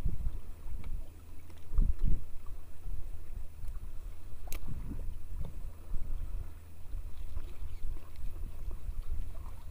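Wind rumbling on the microphone and water lapping against a small wooden boat's hull in uneven swells, with one sharp click about four and a half seconds in.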